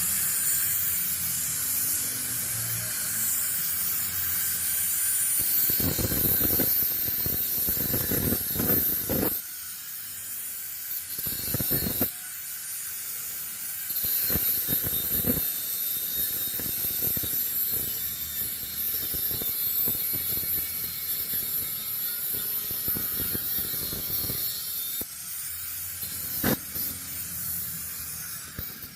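A high-speed power tool running with a steady high whine and hiss, its pitch shifting briefly near the start and again near the end, with scattered knocks and short louder bursts.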